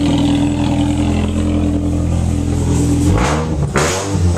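2002 Ford Focus ZX3's 2.0-litre four-cylinder engine running through a newly fitted 4-2-1 header on its first test fire, idling steadily, then revved in a few quick blips about three seconds in.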